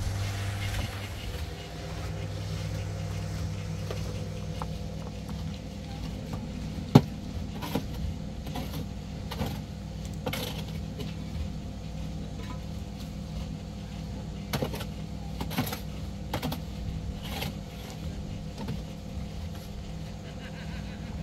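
A motor running with a steady low hum, with scattered clicks and knocks over it; one sharp knock about seven seconds in is the loudest.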